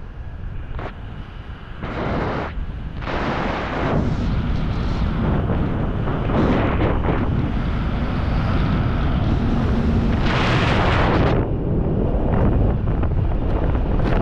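Wind rushing over the camera microphone during a descent under an open parachute canopy, rising and falling in gusts, with the strongest gust about ten seconds in.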